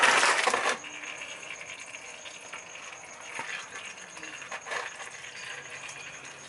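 A short metallic clatter in the oil drain pan, loud for under a second, followed by differential oil trickling into the pan and a few small clicks of metal parts being handled.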